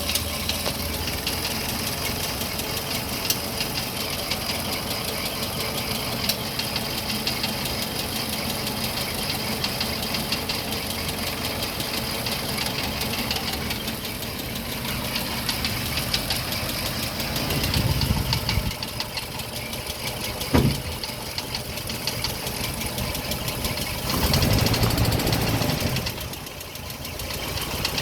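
Land Rover Series 3 engine running with a loud, fast rattle from its worn camshaft roller followers. The engine swells louder twice in the later part, and there is one sharp click between the swells.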